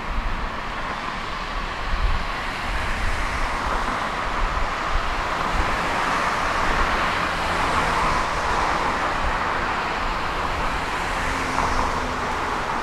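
Tram in motion: steady running noise of wheels rolling on the rails over a low rumble.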